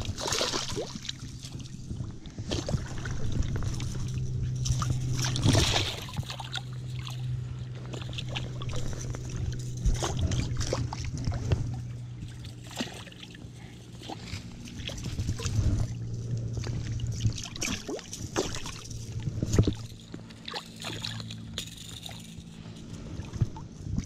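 A hooked walleye thrashing in shallow creek water at the bank as it is landed by hand, with irregular splashes and sloshing over a steady low hum.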